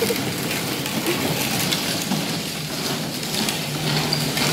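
Plastic wheels of small pedal tractors rolling over a concrete floor, a steady rolling noise.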